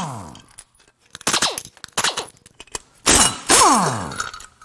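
Impact driver hammering in about four short bursts, loosening bolts. After the first and last bursts there is a falling whine as the motor spins down once the trigger is let go.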